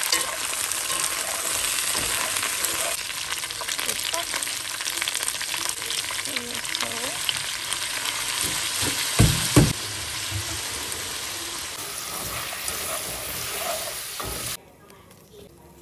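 Chicken and onion sizzling as they stir-fry in a stainless-steel wok, while soy sauce is added and the food is turned with chopsticks. Two dull knocks come about nine seconds in, and the sizzling cuts off suddenly near the end.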